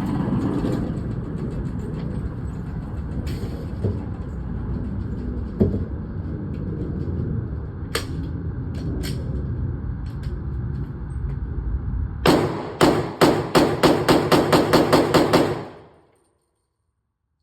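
Pistol gunfire over a steady background rumble: a few scattered shots, then a rapid string of about fifteen shots at roughly five a second, lasting about three seconds, after which the sound cuts off.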